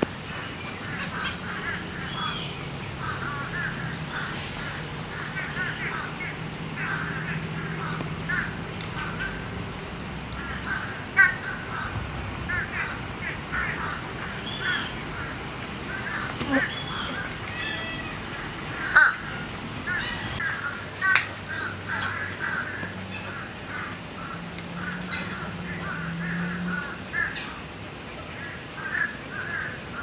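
Many birds calling at once in a busy, overlapping chorus of short calls and chatter, with a few louder, sharp calls standing out.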